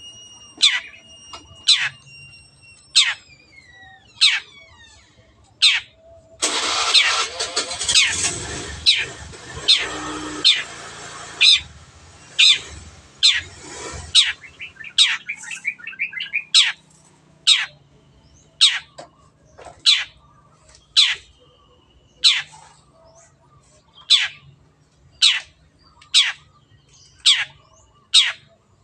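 Long-tailed shrike (cendet) giving sharp, high, downward-sweeping calls about once a second, with a harsh, noisy stretch in the first half and a quick run of calls just after it.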